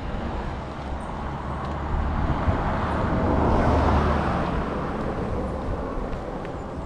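A car passing on the road: its engine and tyre noise grow louder to a peak about halfway through, then fade away.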